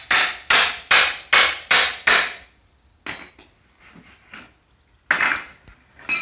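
A hammer striking repeatedly while wooden bed braces are knocked and pried loose: six quick, even blows at about two and a half a second, then a few faint knocks. About five seconds in comes a louder blow with a metallic ring, and another at the very end.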